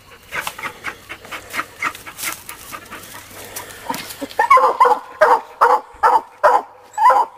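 Black and Tan coonhound barking at a tree, treed on a raccoon: quieter yips and rustling at first, then from about halfway through loud, rapid barks about two to three a second.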